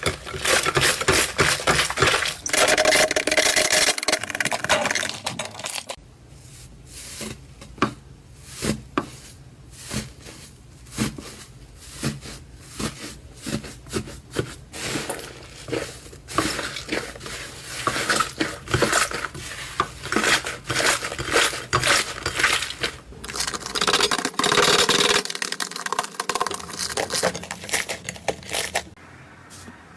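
Slime being worked by hand, making a dense crackling at first. It then breaks into separate sharp pops and clicks about once or twice a second, and turns to dense crackling again.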